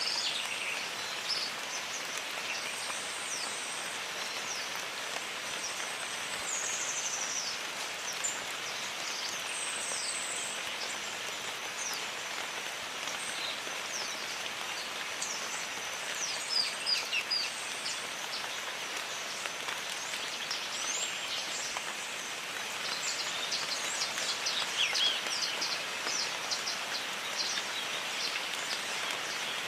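Steady rain falling in a jungle, with birds calling over it: short, high, sweeping chirps scattered throughout, becoming a quick run of chirps in the last third, and a few thin high whistles in the first third.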